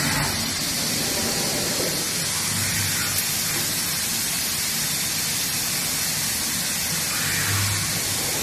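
CNC cutting machine running with a steady, even hiss, like rushing air.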